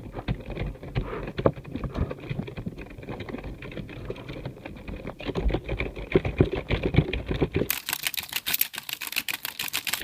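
Fast typing on a computer keyboard, a dense run of key clicks. About eight seconds in the clicks turn sharper and brighter.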